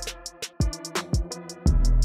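Background electronic music with a steady beat of hi-hats; the bass drops out for over a second, leaving a couple of kick-drum hits, then comes back in near the end.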